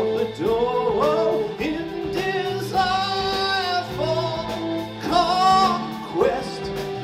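Live progressive rock band playing: bass, drums, guitars and keyboards under a melody of long held, gliding notes that swell and fall away twice in the middle of the passage.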